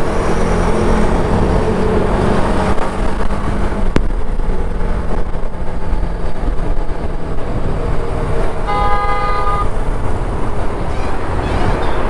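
Motorcycle running at road speed with heavy wind rush and a low engine hum. About three-quarters of the way through, a vehicle horn sounds once for about a second.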